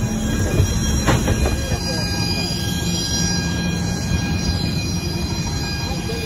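Steady jet-engine whine and low rumble from aircraft on an airport apron, with several high steady tones over the noise. There are a couple of knocks about a second in.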